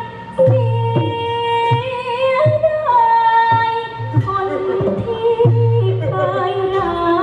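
A likay performer sings in a high heroine's voice, holding long wavering notes over band accompaniment with low bass notes underneath.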